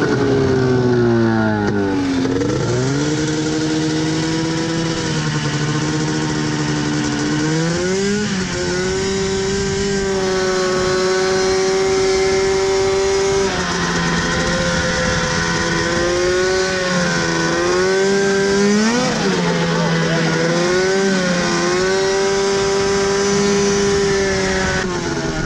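100-horsepower engine-swapped John Deere Gator UTV running with a short, chopped exhaust while being driven. The engine note drops sharply at the start, climbs back, and then holds steady with several rises and dips as it speeds up and slows. The short exhaust is credited with giving back the power lost to the original long muffler.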